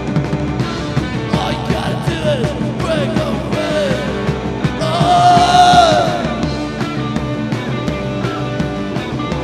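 Live rock band playing an instrumental passage: a steady drum beat under sustained chords, with sliding, bending lead lines that swell loudest about five seconds in.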